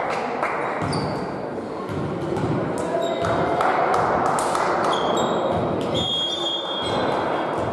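Volleyball-court ambience in a large, echoing sports hall: players' voices and calls, a few ball bounces on the wooden floor, and short sneaker squeaks near the end.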